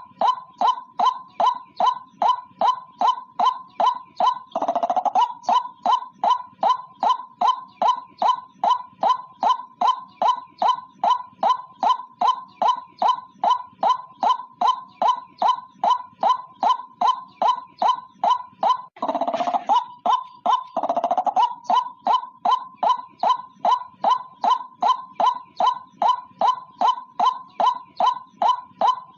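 A single white-breasted waterhen calling: a fast, monotonous run of short notes, about two and a half a second. The run is broken three times by longer, lower, harsher notes.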